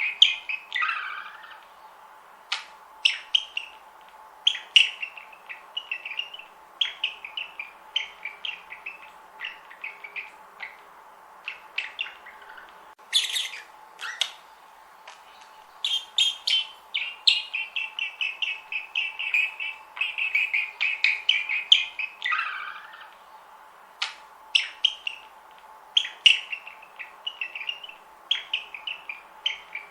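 Budgerigars chirping and warbling: short, scattered chirps throughout, with a couple of longer chattering runs past the middle.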